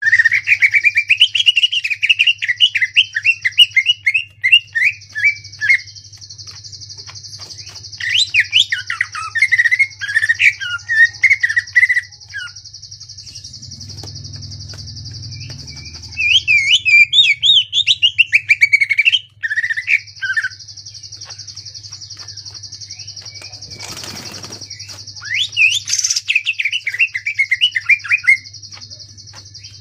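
Cucak ijo (green leafbird) singing in four bursts of fast, rough, rapidly repeated notes, the chattering 'ngentrok' style. Between the bursts are gaps of a few seconds. A steady high hiss and a low hum run underneath.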